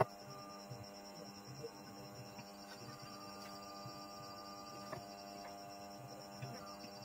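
Faint steady electrical mains hum made of several steady tones, with a faint rapidly pulsing high whine above it.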